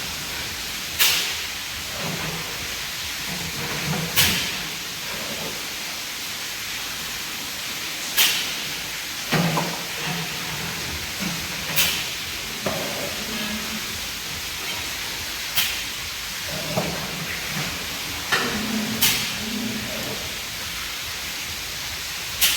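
Steady hiss of a high-pressure water or disinfectant spray washing down the pig pens. Sharp knocks come every three to four seconds.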